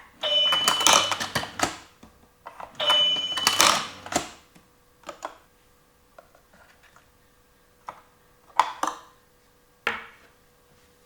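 Plastic toy store play set clicking and rattling in two dense bursts, each opening with a short high beep, followed by a few scattered single clicks.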